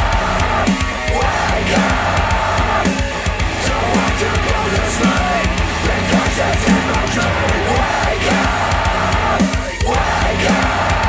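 Loud, heavy rock music track with a steady driving beat and heavy bass, played through KEF Q350 bookshelf speakers driven by an Audiolab 6000A integrated amplifier.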